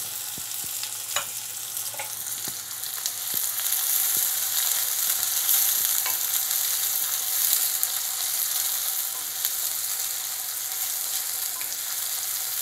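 Sliced onion sizzling in hot mustard oil in an aluminium pan as it is stirred with a wooden spoon; a steady hiss, with a few light clicks in the first few seconds.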